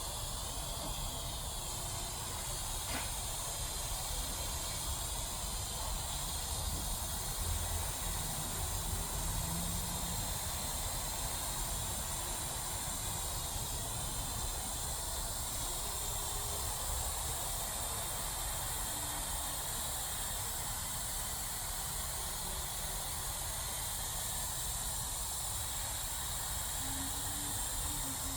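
A steady hiss with a low rumble underneath, unchanging throughout.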